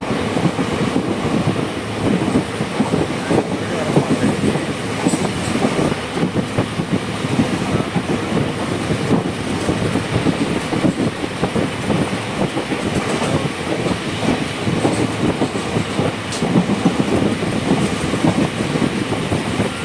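Electric-hauled express passenger train running at speed: a steady rumble with rapid, irregular clatter of the wheels on the rails.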